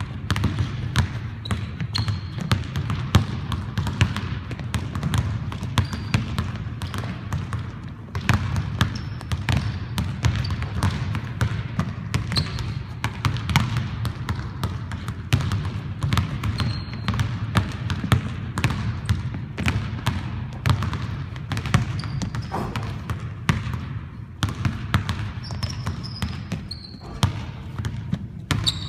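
Several basketballs being dribbled at once on a hardwood gym floor: a constant, irregular patter of overlapping bounces. Brief high sneaker squeaks on the boards come now and then.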